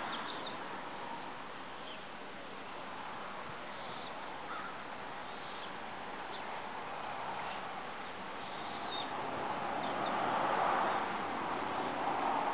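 Steady outdoor hiss with a few faint, brief high bird chirps scattered through it; the hiss swells about ten seconds in.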